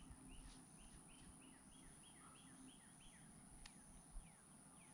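Near silence, with a bird singing faintly in the background: a run of about ten quick repeated notes, then a few falling chirps. A single faint click comes about three and a half seconds in.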